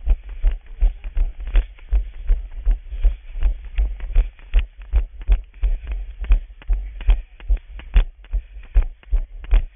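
A runner's footfalls picked up by a body-worn camera: steady, heavy low thuds about two to three a second, the cadence of running.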